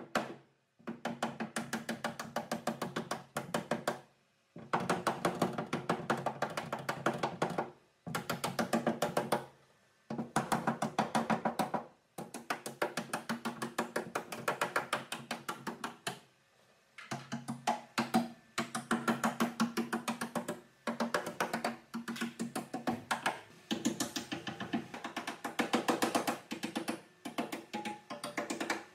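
Auto-body hammer striking a car's steel floor-pan edge against a hand dolly, reshaping crash-damaged sheet metal. Quick runs of several ringing metallic blows a second, broken by short pauses.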